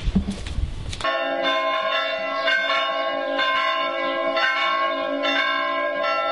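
Church bells ringing in a bell tower, with several tones struck in quick succession about twice a second. The ringing cuts in suddenly about a second in.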